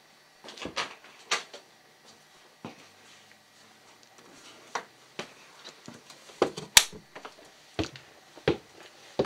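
Footsteps climbing wooden stairs: a series of irregular knocks and thuds of uneven strength, coming closer together in the second half, with one sharp click about two-thirds of the way through.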